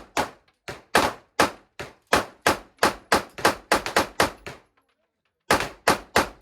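Gunfire on a shooting range: a fast string of shots that quickens to about five a second, breaks off for about a second, then four more shots near the end.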